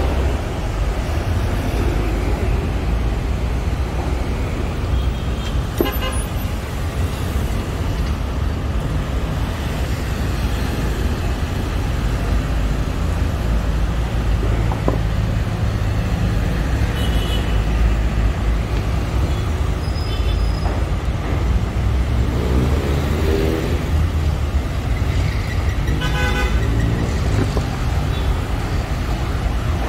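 Road traffic: a steady low rumble of passing vehicles, with a few short horn toots in the second half.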